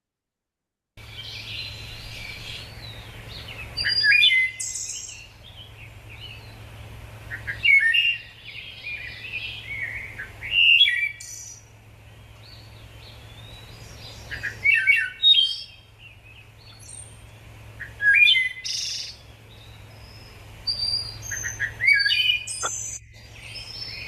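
Recorded wood thrush song: about six flute-like phrases a few seconds apart, beginning about a second in, over a faint low hum.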